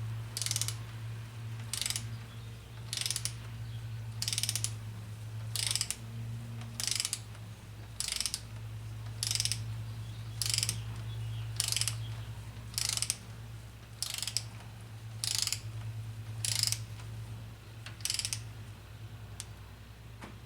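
Ratchet wrench clicking in short bursts, about one burst every second and a bit, as it is swung back and forth to tighten bolts.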